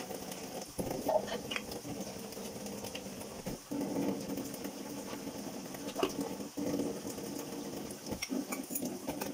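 Dishes being washed by hand at a kitchen sink: sponge scrubbing with a few sharp clinks of dishes. A steady low hum runs underneath, broken off briefly a few times.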